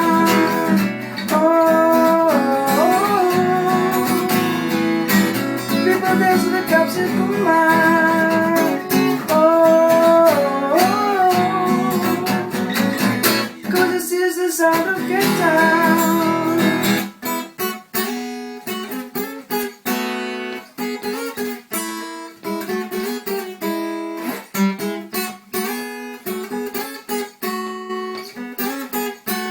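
Acoustic guitar song being played, with a wordless sung melody over the strummed chords for roughly the first half. After that the acoustic guitar plays on alone in short, rhythmic strummed strokes.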